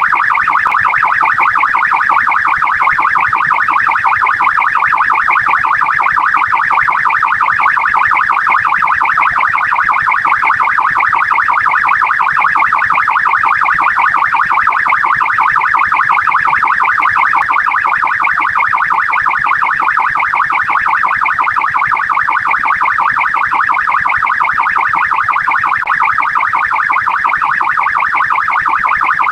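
Australian police car electronic siren sounding continuously in a fast warble, its tone sweeping rapidly up and down without a break.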